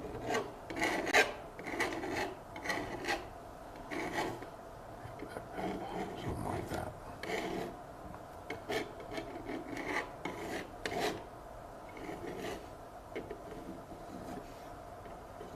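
Palette knife scraping oil paint across a canvas in repeated, irregular strokes.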